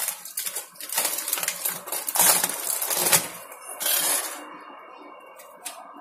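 Aluminium foil crinkling and rustling in loud bursts as it is peeled off a foil food tray; it dies down about four and a half seconds in, with a couple of light clicks near the end.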